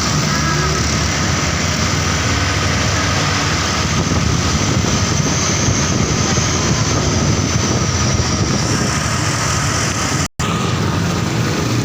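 Heavy bus engine running steadily amid street noise, cutting out for a split second about ten seconds in.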